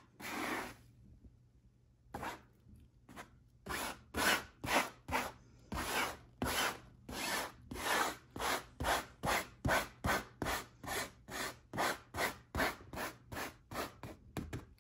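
Metal blade of a manual pet hair remover rasping across carpet in quick, short strokes, about two a second, after one longer stroke and a brief pause near the start.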